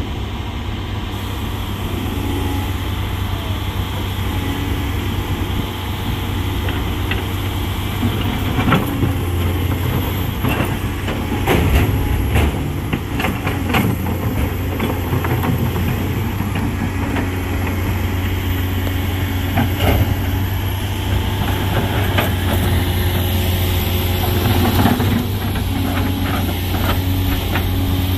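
Heavy truck diesel engine running steadily, with a run of knocks and clatter about a third of the way in.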